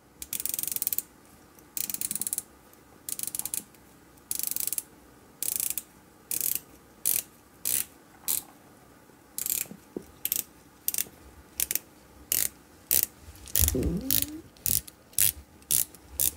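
The 120-click sapphire bezel of an Australis Sea Shade dive watch being turned by hand and ratcheting. At first it turns in short runs of clicks, then in single clicks about two a second. It has a typical microbrand bezel sound.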